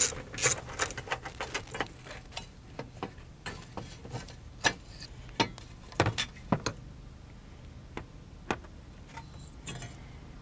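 Ratchet wrench with an 8 mm socket clicking while backing out the screws that hold the ABS vacuum pump bracket, rapid clicks for about the first two seconds, then scattered single clicks and light metal knocks.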